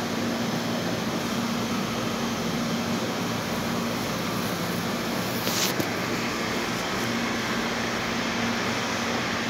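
Steady hum and rushing noise of refrigeration and air-conditioning machinery, with a low drone underneath. A brief sharp click comes a little past halfway.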